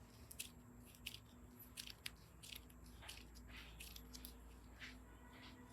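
Faint slime being handled: scattered soft clicks and crackles as it is squeezed and picked up.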